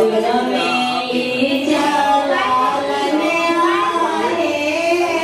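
A song playing: a singing voice over instrumental backing, the melody gliding and wavering.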